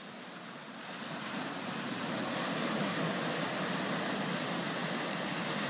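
Sea surf: small waves breaking and washing up a sand and pebble beach, the rush of water swelling about a second in and staying strong.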